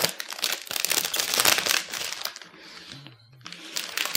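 Clear protective plastic film crinkling and crackling as it is peeled off the front of a new iMac, with a short lull about three seconds in.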